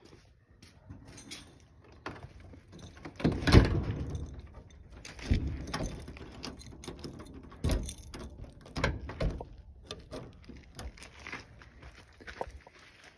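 Footsteps on stone and gravel mixed with knocks and rustling from a hand-held phone, with a few louder thumps, the loudest about three and a half seconds in.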